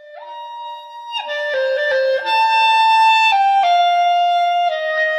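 Closing music led by a clarinet: held notes in a slow, mostly falling melody over other sustained parts, starting softly and swelling louder about a second in.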